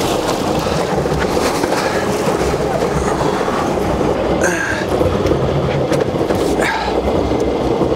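The support boat's engine running under way, with water rushing along the hull and wind on the microphone, in a steady rumble. Two brief higher-pitched sounds cut through, about four and a half seconds in and again near seven seconds.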